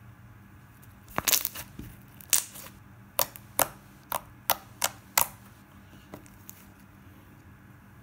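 Pink clicky slime made with Fevicol and Fevigum popping and clicking as fingers press and stretch it, air pockets bursting. About ten sharp pops come between one and five seconds in, then two fainter ones.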